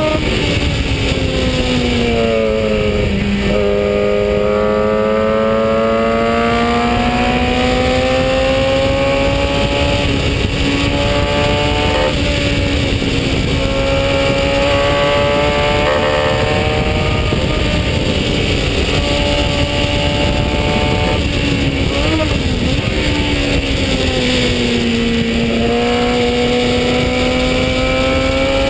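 Onboard sound of a 1965 Brabham BT15 historic Formula 3 car's 1000cc engine racing under a steady rush of wind. The engine pitch drops over the first few seconds, climbs for a long stretch with a small step partway, drops again with a couple of quick blips about two-thirds in, and climbs again near the end as the car brakes and accelerates through the corners.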